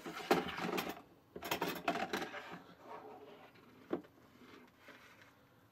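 Small metal baking pan sliding and scraping out through the plastic slot of a toy light-bulb baking oven. It clatters and clicks in the first two seconds, with one sharp knock about four seconds in.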